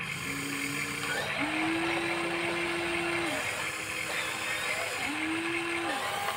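Electric motors of a Huina radio-controlled model excavator whining as the boom and bucket move: four separate whines, each gliding up as a movement starts and down as it stops, over a steady hiss.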